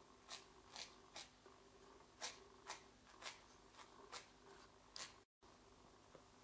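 Felting needle jabbing curly wool fleece into a felt picture over a foam pad: faint, short, crisp pokes at roughly two a second. The sound breaks off for an instant near the end.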